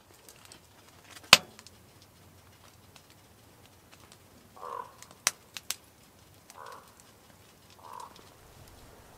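Trees laden with icy snow creaking in the wind: three short creaks in the second half. A sharp crack about a second in is the loudest sound, with two fainter clicks in the middle.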